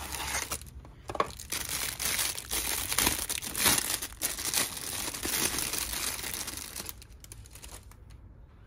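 Clear plastic bag wrapped around a rifle scope crinkling and rustling as it is handled and opened, with many sharp crackles; it dies down about seven seconds in.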